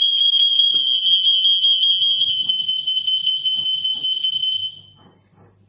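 Interconnected ANKA smoke alarms sounding together on test, a loud steady high-pitched alarm tone that stops near the end. Pressing the test button on one unit sets off the linked alarms, the sign that the group is paired.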